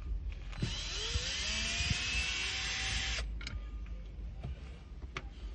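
Cordless power drill running for about two and a half seconds, its motor pitch rising and then holding steady, as it backs out a screw from the car's door trim. A few light plastic clicks come before and after.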